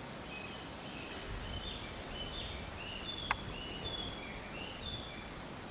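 A songbird singing a string of short, high whistled notes at shifting pitches, about three a second, over a steady outdoor hiss. A single sharp click sounds a little past halfway.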